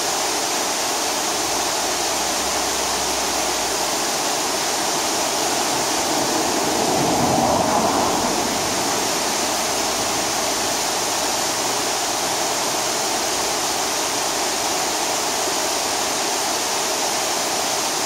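Waterfall cascading down a rock face into a rocky river: a steady, dense rush of falling and splashing water, briefly swelling louder about seven seconds in.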